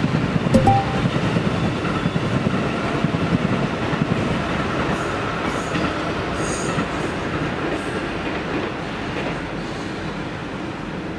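A train running past on the tracks, a steady rumble of wheels on rail that slowly fades toward the end, with a brief high squeal about six seconds in.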